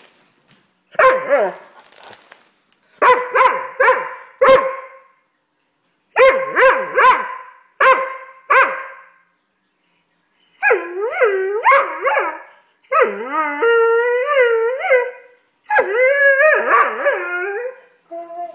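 Red Doberman puppy throwing a tantrum: volleys of short, sharp barks, then from about halfway long wavering howls that swoop up and down in pitch.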